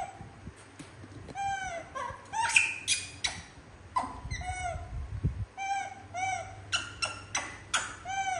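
Young macaques calling repeatedly: short whining coos that rise and fall in pitch, mixed with sharp high squeaks that come faster in the second half. These are the excited calls of hungry monkeys crowding a plate of food.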